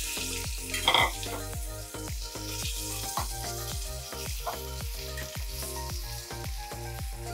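Boiled raw-banana (plantain) cubes sizzling in hot oil in a metal kadai while a slotted metal ladle stirs them, with a short scrape of the ladle about a second in. Soft background music with a steady beat plays underneath.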